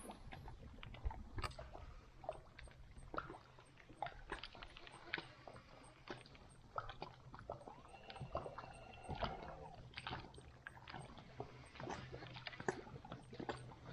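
Water sloshing and lapping against a kayak hull, with scattered small knocks and clicks and a faint steady low hum underneath.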